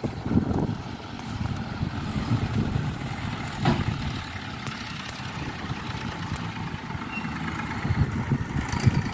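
Low, uneven rumble of an idling engine, with a short knock about three and a half seconds in.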